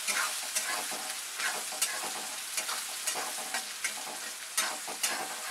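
Chopped onion sizzling in hot oil in a steel kadhai, stirred with a metal spatula that scrapes and clinks against the pan at irregular intervals.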